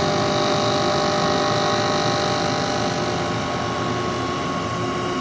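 Okuma Millac vertical machining center spiral-milling a 4340 alloy steel part with a 3/8-inch carbide ball end mill: a steady machine hum with several constant tones from the spindle and cut.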